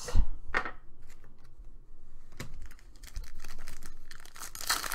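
Foil trading-card pack being handled and torn open: a series of clicks and rustles, then the crinkling tear of the wrapper near the end.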